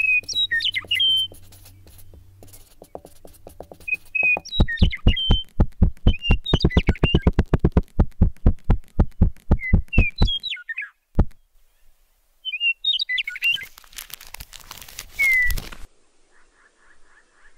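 Bird-like chirps and short whistled glides, with a run of rapid, even taps, about five a second, in the middle. Near the end comes a burst of dense noise for a couple of seconds, cut off sharply.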